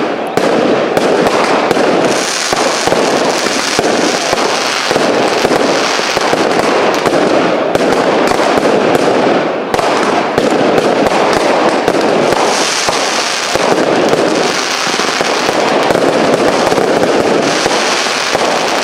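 Firework cakes (multi-shot batteries) firing without a pause: a dense run of launches and bursting shells, many bangs a second, with a few stretches of higher hiss.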